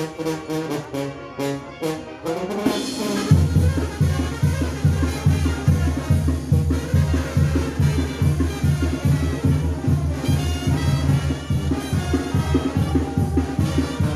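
Mexican brass banda playing: trumpets and trombones carry the melody, and a low pulsing bass line with a steady beat comes in about three seconds in.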